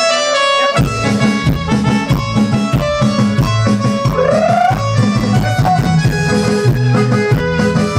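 Live dance music led by an electronic keyboard: a few held keyboard notes, then about a second in the bass and drums come in with a steady beat under the keyboard, with a short upward slide near the middle.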